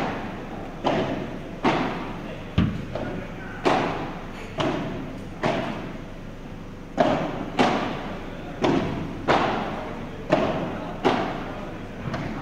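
Padel balls being struck with rackets during a rally: a run of sharp pops, about one a second, each trailing off in the echo of a large indoor hall.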